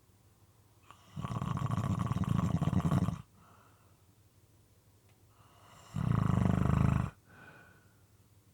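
Moist, irregular snoring: a long rattling snore of about two seconds starts a second in, and a shorter snore comes near the end, with faint breaths between them.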